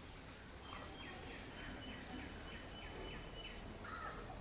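A bird calling: a quick run of about eight short, evenly spaced falling notes over some three seconds, with a shorter call near the end, over steady outdoor background noise.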